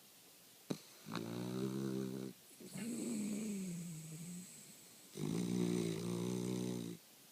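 A dog snoring in its sleep: three drawn-out snores of a second or two each, the middle one sliding down in pitch.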